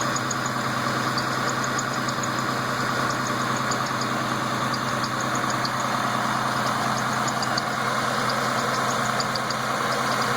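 Freshly rebuilt car engine idling steadily, with short, irregular high-pitched chirps from the accessory drive belt. The owner takes the chirping to come from the inner belt and suspects either the belt itself or the tensioner bearing.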